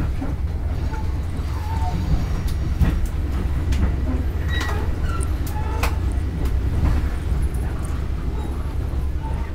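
Inside a Long Island Rail Road electric commuter train running at speed: a steady low rumble from the wheels and car body, broken by a few sharp clicks from the wheels over the track, with faint passenger voices.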